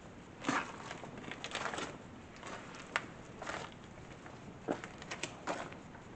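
Footsteps with scattered crunches and scrapes, irregular short knocks spaced about half a second to a second apart.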